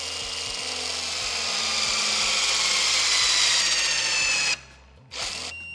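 HYTORC Lion electronic torque gun whirring as it tightens a Porsche centre-lock wheel nut to 440 ft-lb; its whine slowly falls in pitch and grows louder as the torque builds, then cuts off suddenly about four and a half seconds in when the set torque is reached. A brief rattle follows, and a short beep sounds at the very end.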